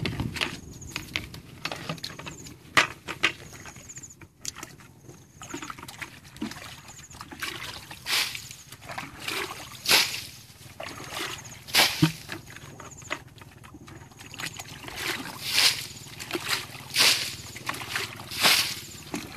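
Muddy ditch water being bailed with a plastic bucket: scooping sloshes followed by splashes as each bucketful is flung onto the grassy bank, one every second or two, coming faster and louder in the second half.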